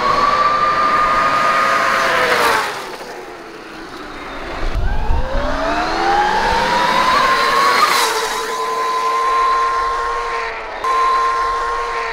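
Electric motor of a converted 1993 Kawasaki KX250 dirt bike (QS138 3 kW motor) whining under throttle. The pitch holds, drops away a couple of seconds in as the throttle closes, then climbs again from about five seconds in and holds steady.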